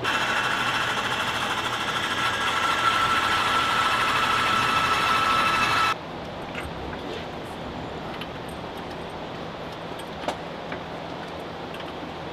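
A machine runs with a steady, loud whine of several high tones over a rushing hiss, then cuts off abruptly about six seconds in. After that there is a quieter low hum with a few light clicks.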